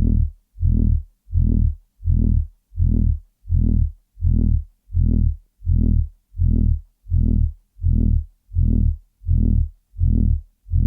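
Loud, low-pitched electronic throbbing noise: a deep buzzing tone pulsing on and off evenly, about one and a half pulses a second, with a short silence between pulses.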